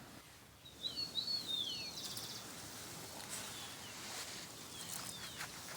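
Songbirds calling outdoors: a cluster of high, down-slurred whistled notes about a second in, followed by a short trill and fainter, scattered whistles.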